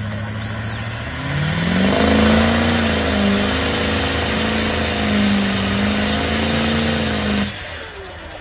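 Off-road vehicle's engine revving hard while it is bogged deep in mud, with black smoke pouring from its vertical exhaust stack. The pitch climbs over the first couple of seconds, holds high with slight wavering, then drops off suddenly near the end.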